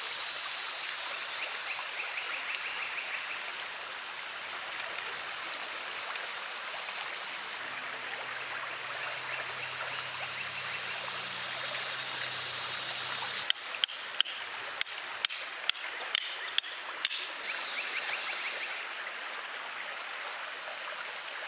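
Small creek rapids rushing steadily over rocks. About two-thirds of the way through comes a quick run of sharp clicks and knocks.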